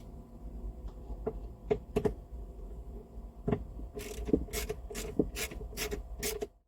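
A series of mechanical clicks and light knocks, turning after about four seconds into a regular clicking about three times a second, like a ratchet or mechanism being worked.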